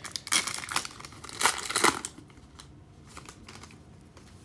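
Foil trading-card pack wrapper being torn open and crinkled, loud for about two seconds, then dying down to faint rustling and light ticks as the cards are handled.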